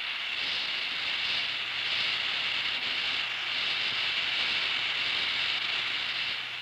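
Oxy-acetylene welding torch flame hissing steadily on the weld puddle of a steel plate, fading out near the end.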